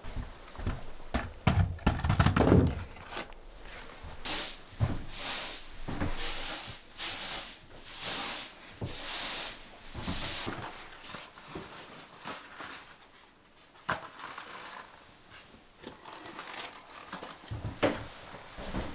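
Knocks and thumps of things being handled in a small wooden room, followed by a run of about eight swishing strokes, then scattered light clicks and knocks.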